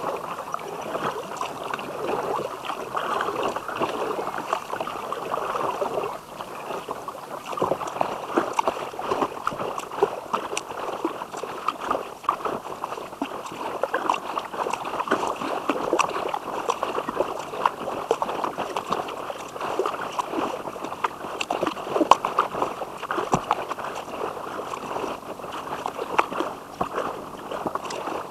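Kayak moving through river water: a paddle splashing, drips and water gurgling along the hull, with many small irregular splashes over a steady wash.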